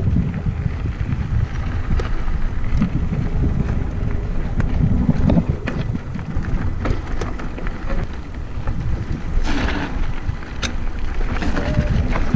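Mountain bike descending a loose dirt trail: a steady low rumble of wind buffeting the camera microphone and tyres rolling over dirt, with many sharp clicks and knocks from the bike rattling over the rough ground. A brief louder rush of noise comes just before ten seconds in.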